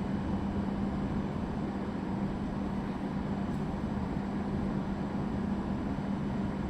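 Steady vehicle running noise: an even rumble with a constant low hum and no distinct events.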